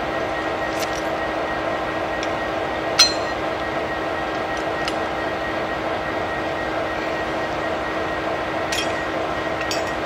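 Diesel locomotive running with a steady hum, broken by a few sharp metallic clinks, the loudest about three seconds in.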